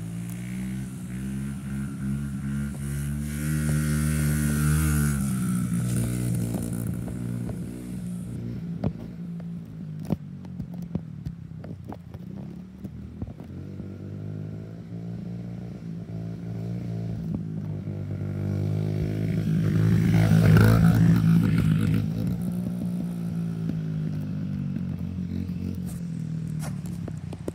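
A small dirt bike's engine running as it is ridden back and forth, the pitch rising and falling with the throttle. It swells loudest as the bike passes close, briefly early on and most of all about three-quarters of the way through.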